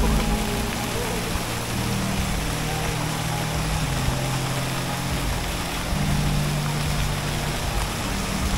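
Slow ambient synthesizer music with long held low notes that change every second or two, over a steady rushing background noise.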